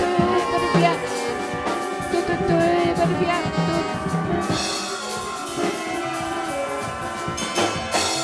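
Large jazz ensemble playing improvised music together: saxophones, flutes, trumpets and trombone over upright bass and drum kit.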